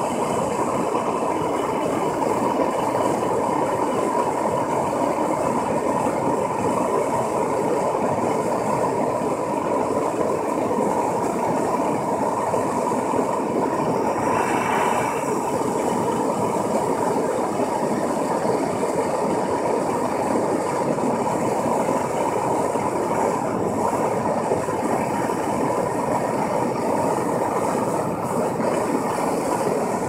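Gas blowtorch burning at full flame, a steady rushing noise as it fires into the opening of a small brick furnace.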